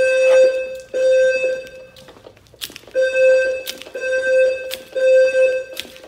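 Alarm tone from the speakers of a Notifier NFS2-640 voice evacuation system, a single low steady pitch in long beeps of about a second each: two, a pause of about a second, then three more.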